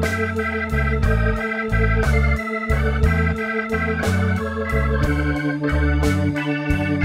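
Blues background music with an organ over a bass line and a steady beat.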